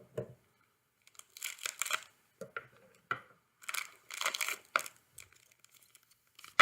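Wrapper of a basketball trading card pack being torn open and crinkled: two longer tearing bursts, about a second and a half in and about four seconds in, with short crackles between.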